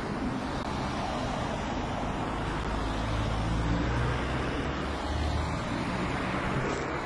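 Road traffic: a steady rush of passing cars, with a low rumble that swells about halfway through as a vehicle goes by.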